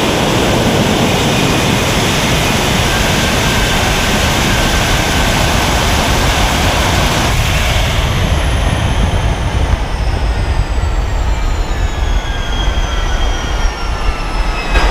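General Electric J79 turbojet of a jet-powered Freightliner semi truck making a drag-strip run at full thrust, heard on board as a loud continuous roar. A sharp crack comes right at the start. From about halfway through, the engine spools down after the pass, with a whine falling steadily in pitch under the roar.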